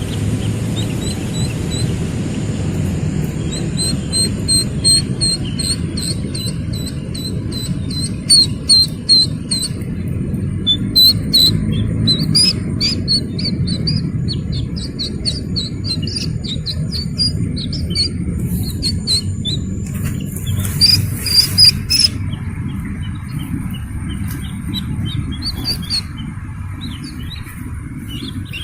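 Slaty-legged crake chicks calling: a fast run of short, high peeps, several a second, over a steady low rumble, with a few loud sharp clicks about a third of the way in and again about three quarters through.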